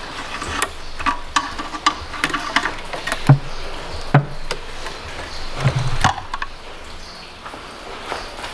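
Hand tools and metal engine parts clicking and tapping as someone works by hand in a car's engine bay, with three louder knocks in the middle.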